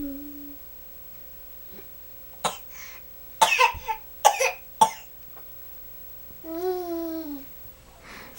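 A run of about four or five short, sharp coughs, as in a playful coughing game, followed a second or so later by a baby's drawn-out vocal sound that falls in pitch.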